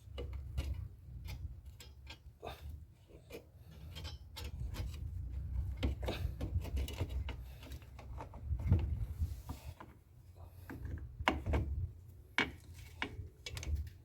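Irregular metal clicks, knocks and scraping of drum-brake shoes and their return springs being worked into place on a Volkswagen Beetle wheel's backing plate, over a low rumble.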